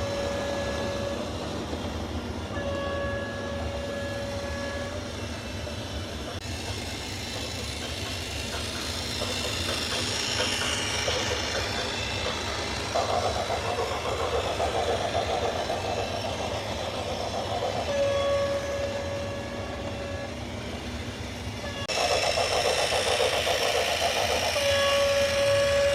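A vehicle horn sounds in several long, steady blasts of the same pitch over a continuous heavy-vehicle rumble, with stretches of rougher, louder noise in between.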